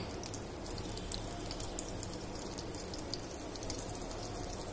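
Mustard seeds frying in hot oil in a kadhai alongside cut green chillies: a steady low sizzle with scattered small crackles as the seeds start to splutter, the sign that the tempering oil is hot enough.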